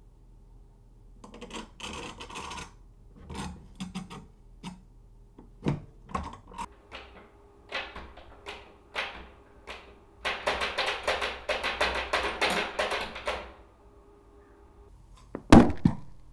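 A metal desk lamp clicking and knocking against a door and its lever handle, then a burst of fast rattling, and one loud thud near the end.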